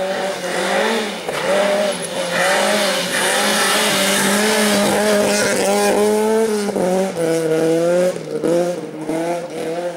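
Rally car engine at high revs as the car approaches and passes: the note holds high for several seconds, then drops and climbs again a few times with gear changes and lifts near the end.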